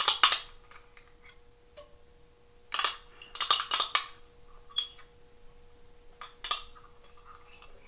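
Clinking of a glass jar of chopped garlic as it is scraped and tapped out over a skillet: short sharp clinks at the start, a cluster about three seconds in, and a few more near the end.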